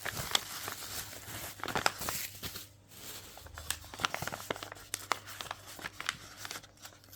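Packaging being handled and unwrapped, crinkling and tearing in irregular bursts with scattered sharp clicks.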